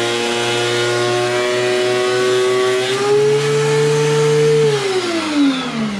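DeWalt benchtop thickness planer's motor running loudly and steadily. Its pitch steps up slightly about three seconds in, then falls steadily as it is switched off and spins down.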